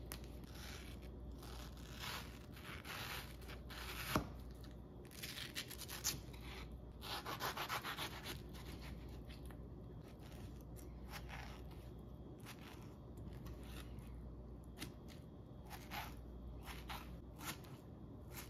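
A paring knife peeling and cutting a ripe mango on a plastic cutting board: faint scraping and rubbing strokes of the blade through the skin and flesh, with light taps of the knife on the board and one sharper knock about four seconds in.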